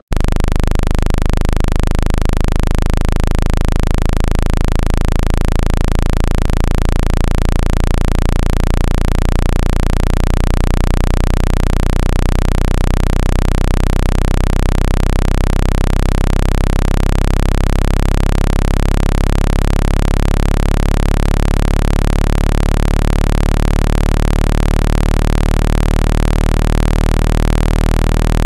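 Speaker dust-cleaning sound: a loud, steady low-pitched hum with a hiss over it, starting abruptly. It is played to vibrate dust out of a phone speaker's grille.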